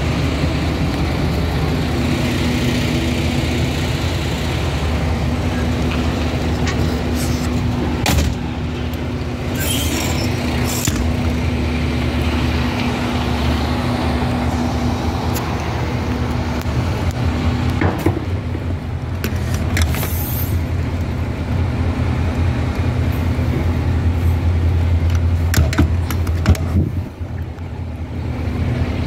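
Fire truck's diesel engine idling steadily, a low even hum. A few short sharp knocks stand out over it.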